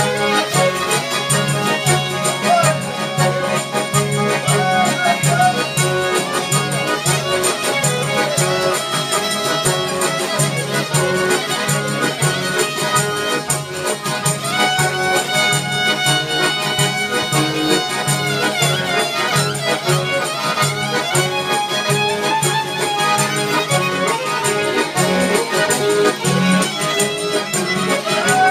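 Live Albanian folk music: long-necked lutes strummed, a violin bowing the melody, and a frame drum with jingles keeping a steady beat.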